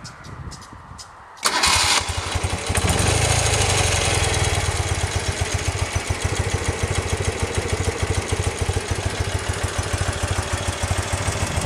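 1972 BMW R60/5's air-cooled flat-twin boxer engine starting: it cranks briefly about a second and a half in and catches at once. It runs a little faster for a couple of seconds, then settles into a steady, even idle that purrs like a kitten.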